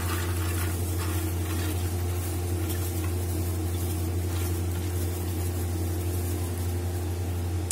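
A steady low hum from a running appliance or electrical source, with faint patter from soaked chana dal being tipped into an aluminium pressure cooker pot in the first seconds.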